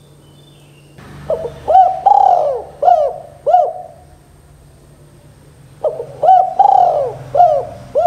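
Spotted dove cooing in two phrases of several short coos each. The first phrase starts about a second in and the second near six seconds.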